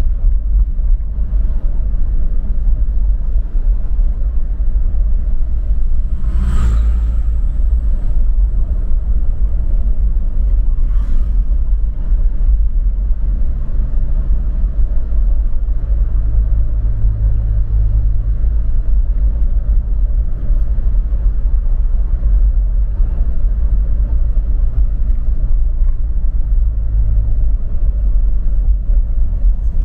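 Vehicle driving along a mountain road: a steady heavy rumble of engine and road noise, with one sharp knock about six and a half seconds in.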